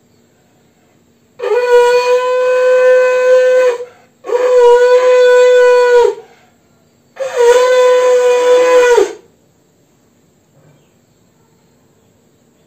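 Conch shell (shankha) blown three times in long, steady blasts of about two seconds each, the pitch bending up at the start of each blast and dropping as it ends: the three conch blasts of a household puja.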